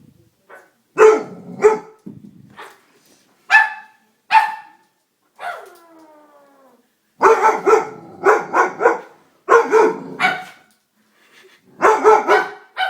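Dog barking in sharp separate barks, with one drawn-out call falling in pitch about halfway through, then quick runs of repeated barks.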